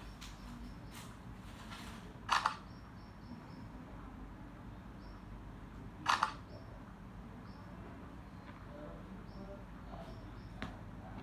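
Packaging being handled: two short, sharp rips or rustles about four seconds apart, over a low steady hum.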